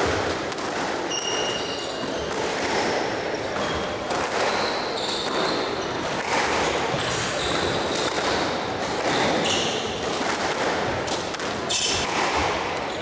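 Murmur of spectators in a squash hall between rallies, with short high squeaks of court shoes on the wooden floor.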